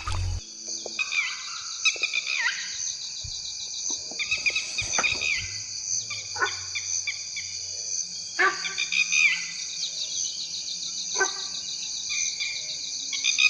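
Forest ambience: a steady, pulsing insect chorus, with short bird calls sliding down in pitch every second or two.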